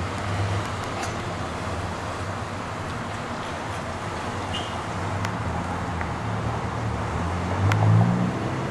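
Cars driving past: a steady low engine and tyre rumble, growing louder near the end.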